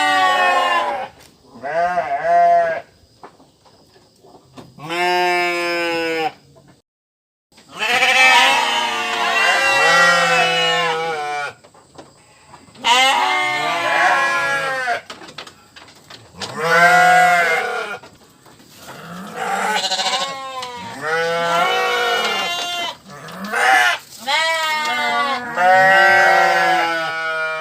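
Sheep bleating over and over: a run of long, wavering bleats, each lasting one to several seconds, with short pauses between them.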